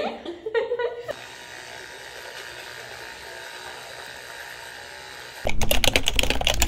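Electric toothbrush buzzing steadily for about four seconds. Near the end it gives way to a loud, fast run of keyboard-typing clicks.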